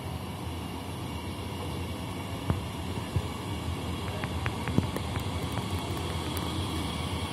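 SNCF Z 50000 Francilien electric multiple unit rolling into the platform as it comes in to stop: a steady low rumble with a faint high whine, and a few sharp clicks about two and a half to five seconds in.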